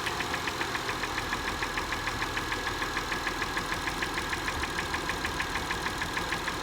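2005 Acura TL's 3.2-litre V6 idling with a steady, rhythmic knock of about six to seven sharp ticks a second, the engine knock of a car with about 172,300 miles.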